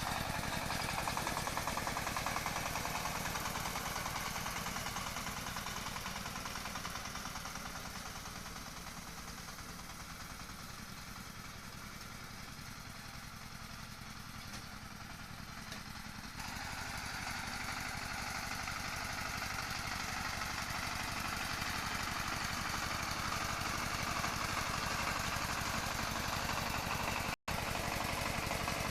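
An engine-driven farm machine running steadily during the paddy harvest. It fades somewhat in the middle, comes back abruptly about 16 seconds in, and cuts out for an instant near the end.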